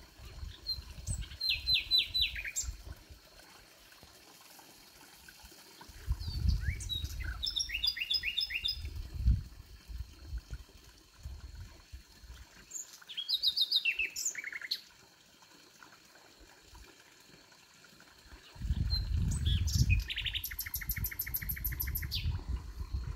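Nightingale singing: four phrases of fast repeated notes and whistles with pauses of a few seconds between them, the last phrase ending in a long rapid trill. A low rumble lies under the louder phrases.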